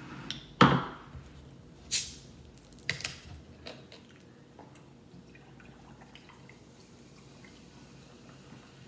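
A few sharp knocks as a glass and a plastic bottle are handled and set on a table, the first and loudest about half a second in, then cola fizzing faintly with small crackles as it is poured from the plastic bottle into a glass in the second half.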